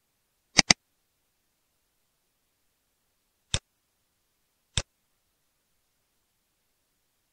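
Computer mouse button clicks: a quick double-click about half a second in, then two single clicks a little over a second apart midway through.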